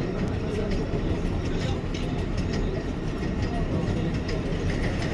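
New York City subway 7 train running along the track: a steady heavy rumble with a thin, steady high whine and irregular clicks from the wheels on the rails.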